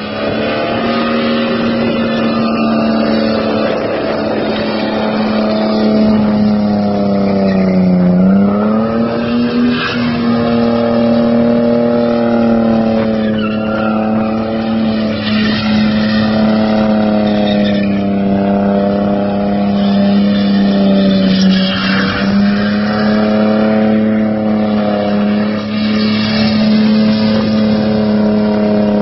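A Ford car doing a burnout: the engine is held at high, steady revs while the tyres spin and squeal. The revs dip briefly about eight seconds in, then climb back and hold.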